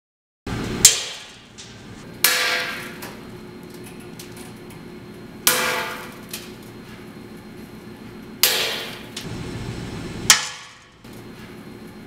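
Prince Rupert's drops of tempered glass bursting: five sharp cracks, each with a ringing tail, spaced one to three seconds apart over a steady low hum.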